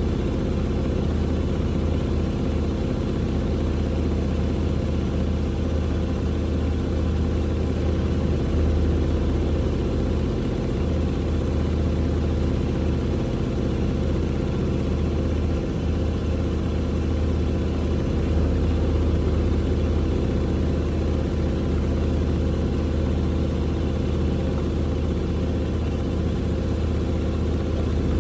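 Hoover H-WASH 700 washing machine drum spinning during an interim spin with a very unbalanced load, giving a steady low hum.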